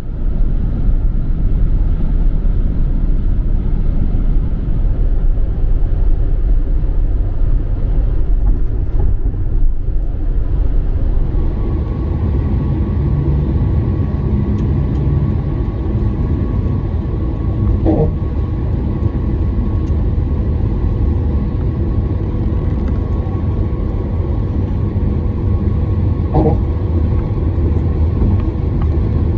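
Car driving: steady low road and engine rumble with no letup, and a couple of faint short knocks partway through.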